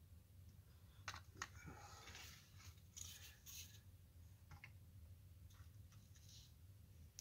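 Faint workbench handling noises: a few light clicks and rustles as a syringe is set down and a small wooden figurine is lifted and fitted onto its base, over a low steady hum.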